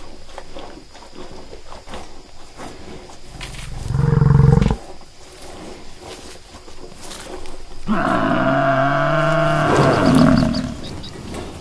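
Water buffalo calling: a short, low moo about four seconds in, then a longer, pitched bellow that bends in pitch from about eight seconds in, with a shorter one after it.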